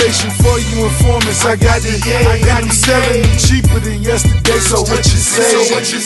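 Hip hop track with rapped vocals over a heavy bass and drum beat; the bass drops out briefly near the end.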